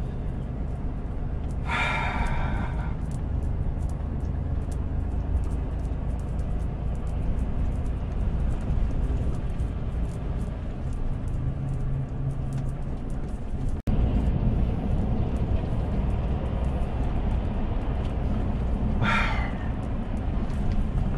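Steady low drone of a Volvo truck's diesel engine and road noise inside the cab while cruising. Two short breathy hissing sounds come about two seconds in and near the end.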